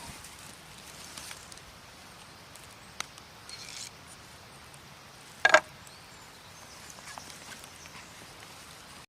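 Quiet outdoor ambience with a faint steady hiss, a single click about three seconds in, and one louder brief sharp sound a little past the middle.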